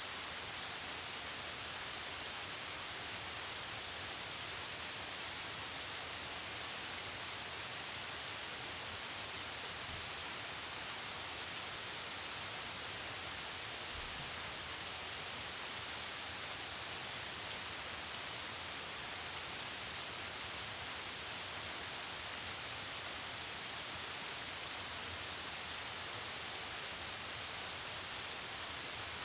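Mountain waterfall rushing steadily down rocks: a constant, even hiss of falling water that never changes in level. A brief low bump about halfway through.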